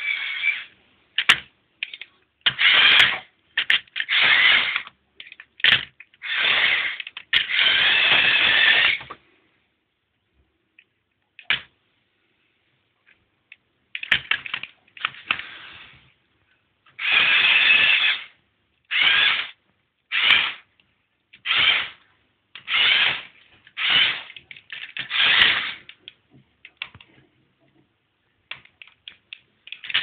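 LEGO Technic 8275 bulldozer's Power Functions electric motors and plastic gear trains whirring in repeated start-stop runs, some brief and some over a second long, as its functions are driven on and off. There is a few-second silent pause about halfway through, and a few light clicks near the end.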